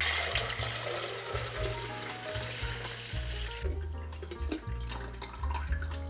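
Water pouring from a glass carafe into a drip coffee maker's water reservoir, a steady splashing pour that thins to a trickle a little past halfway, over background music.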